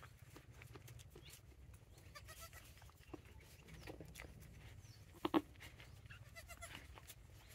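A goat gives a short bleat about five seconds in, with a few fainter calls around it, as a doe licks her newborn kid; faint wet licking and rustling sounds lie between the calls.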